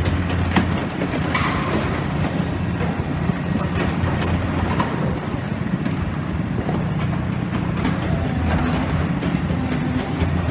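Heavy demolition excavator's diesel engine running steadily, with scattered knocks and clanks of metal and rubble being worked.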